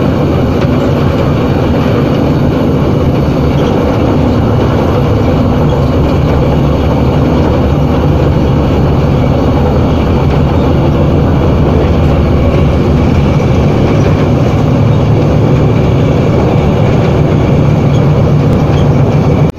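Class M4 (Montreal Locomotive Works MX-620) diesel-electric locomotive running along the line: a loud, steady low engine drone mixed with wheel-and-rail noise.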